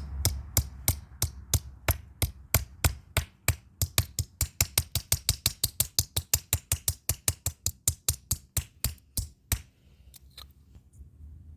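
Rapid repeated strikes on the pieces of a dismantled RFID keypad lock, about five sharp hits a second, stopping about nine and a half seconds in. A few faint clicks follow.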